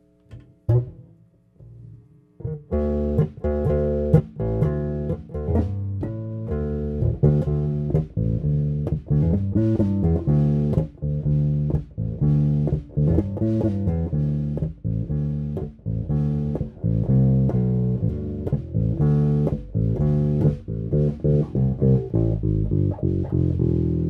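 Electric bass guitar played through a Carvin BX700 bass amplifier head with its solid-state preamp selected. A couple of single plucked notes, then a continuous bass line from about two and a half seconds in.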